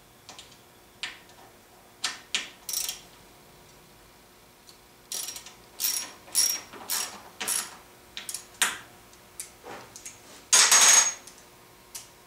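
Hand ratchet wrench clicking in short groups of strokes as it tightens the mounting bolts of a table saw's fence guide rail, with one longer, louder burst near the end.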